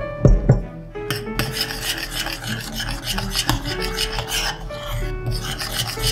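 Metal spoon scraping and rubbing against the bottom and sides of a stainless steel saucepan while stirring a thin flour porridge, a continuous rasping from about a second in. Two sharp knocks come just before it.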